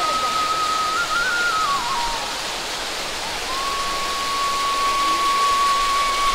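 Small spring-fed waterfall pouring off a rock overhang and splashing onto stones, a steady rushing hiss. Over it runs a thin single-note background-music melody: it steps in pitch in the first couple of seconds, stops, then comes back about three and a half seconds in as one long held note.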